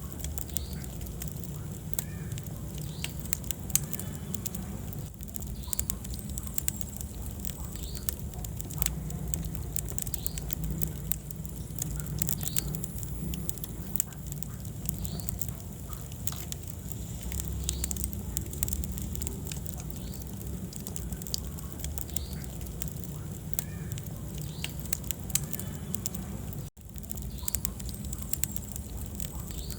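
Wood fire in a fireplace burning, with frequent irregular crackles and pops over a steady low rumble. The sound cuts out for an instant near the end.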